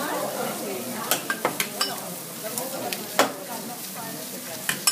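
Diced meat sizzling on a teppanyaki steel griddle, a steady hiss, with sharp metallic clicks and taps of the chef's spatula and utensils on the griddle plate, several in quick succession about a second in and a loud one about three seconds in.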